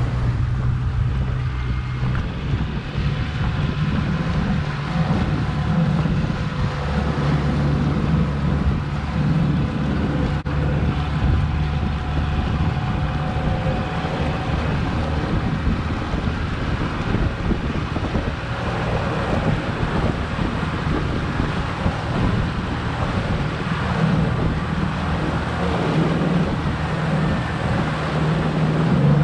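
Honda four-stroke outboard running with the boat under way, over the rush of water and wind buffeting the microphone. The boat has strayed off the channel onto shallow mud, and the propeller is churning it up; its note shifts a couple of times.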